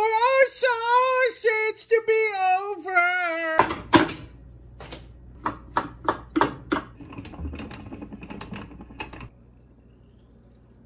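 A high-pitched voice sings a short wavering phrase for about three and a half seconds. Then come a string of irregular sharp clicks and taps from handling a metal sausage stuffer, which stop about nine seconds in.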